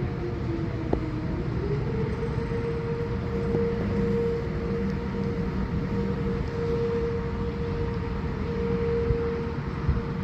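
Outdoor warning siren sounding for a severe thunderstorm warning. Its single tone dips in pitch near the start, climbs back after about two seconds and then holds steady, growing louder and softer in turn. A low rumble runs under it.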